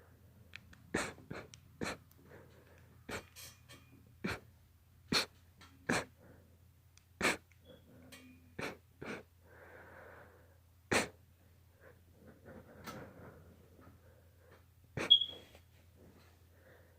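A man sneezing over and over in a sneezing fit: about a dozen short, sharp sneezes with breathing between them, the loudest near the end.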